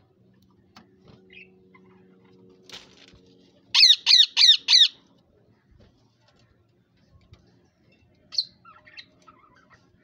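Rose-ringed parakeet (Indian ringneck) giving four quick harsh squawks in a row, then a single shorter call a few seconds later.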